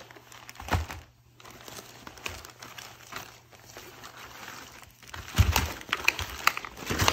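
Plastic packaging bag crinkling and rustling while the hard plastic shell of a Leatt 6.5 Pro chest protector is handled on it, with a couple of soft knocks from the shell. The crinkling gets louder over the last two seconds.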